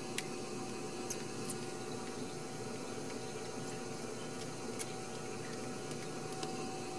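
Steady background hiss with a faint constant hum, broken by a few faint short clicks.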